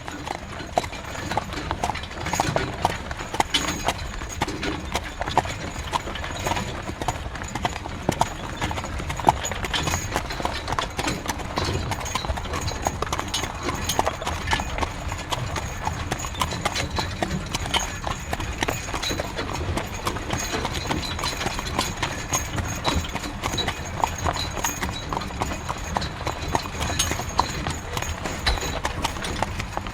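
Horse-drawn carriage on the move: a horse's hooves clip-clopping in a steady trot-like rhythm, with a continuous low rumble underneath.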